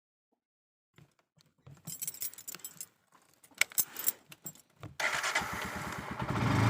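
Keys jangling in short irregular bursts, then a vehicle engine starts suddenly about five seconds in and keeps running.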